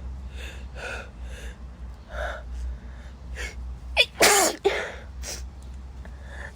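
A woman's sneezing fit. A run of short catching breaths builds up over the first few seconds, then comes one loud voiced sneeze about four seconds in, with a short sharp burst right after it and quieter breaths following.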